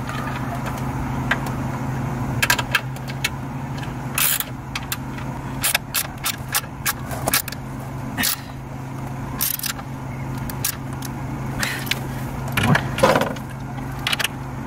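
Irregular metallic clinks and scrapes of bolts, washers and a hand wrench as a battery cage is bolted down, over a steady low hum.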